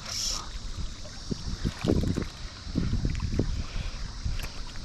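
Steady rush of water from the spillway, with irregular low buffeting of wind on the microphone, strongest in the middle.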